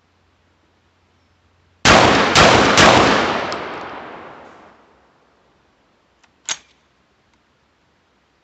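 Hatfield SAS 12-gauge semi-automatic shotgun firing three quick shots about half a second apart, its action cycling each round, with the reports echoing away over about three seconds. A short clink follows a few seconds later.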